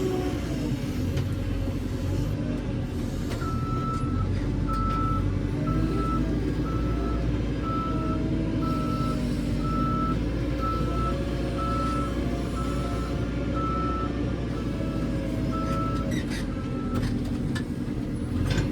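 JCB 3CX backhoe loader's diesel engine running under load, its pitch rising and falling a little, while the reversing alarm beeps steadily. The beeping starts a few seconds in and stops shortly before the end.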